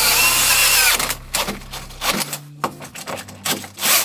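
Cordless drill driving a hole saw into thick hardwood. It runs steadily with a whine for about the first second, then stops and comes back in short, separate bursts.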